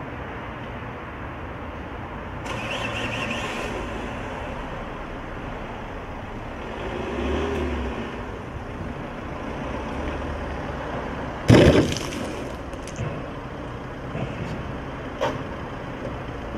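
Steady running noise of a car and car-wash machinery. About two-thirds of the way through, a single sudden loud splash comes as a load of yellowish slurry lands on the car, followed by a few small clicks and knocks.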